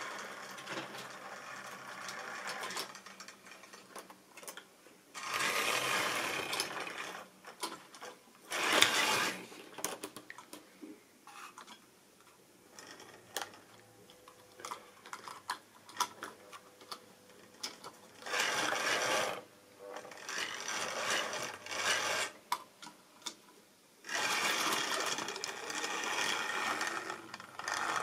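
Model railway diesel locomotive running on the track: its small electric motor running and the wheels rattling and clicking over the rail joints, in several loud spells of a few seconds each with quieter clicking between.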